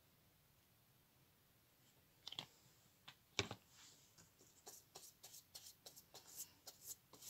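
Two light knocks, the louder about three and a half seconds in, then a flat paintbrush loaded with clear glue brushing in quick short strokes, about four a second, across a cardboard file-folder strip.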